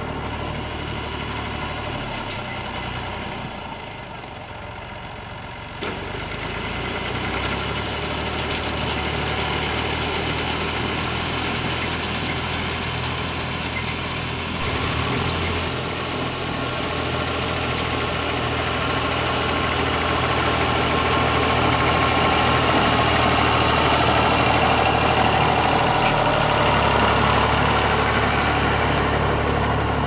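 Old Massey Ferguson tractor engine running steadily under load while pulling a reaper-binder through standing wheat, the binder's moving parts working along with it. It dips for a few seconds early on, then grows louder in the second half.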